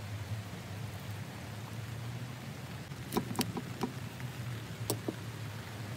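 A fork and spoon breaking into the crisp crust of a baked saffron rice cake on a metal platter: a few short, sharp clicks and crunches starting about three seconds in, over a steady low hum.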